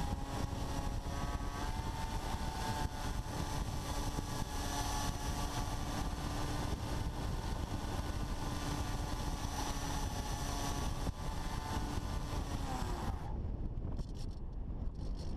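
FPV Raptor RC plane's stock electric motor and propeller whining steadily in flight over a rush of wind on the onboard camera. Near the end the whine winds down and cuts out as the throttle comes off, leaving only wind noise.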